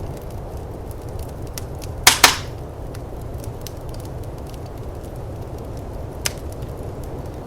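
Firepit crackling, with small scattered clicks, a loud double pop about two seconds in and another sharp pop near the end, over the steady low rumble of snowstorm wind.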